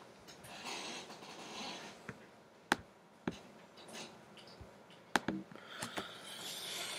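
A few sharp single clicks from working a computer's pointer, the loudest about three seconds and five seconds in, with faint soft rustling between.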